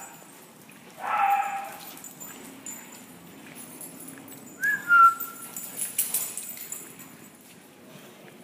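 Dog whining: a short cry about a second in, then a thin, high whimper that dips slightly in pitch about five seconds in. A sharp knock follows about a second later.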